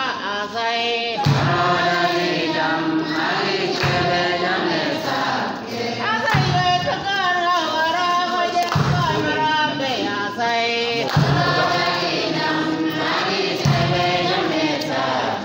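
Church choir singing, with a low pulse returning about every two and a half seconds beneath the voices.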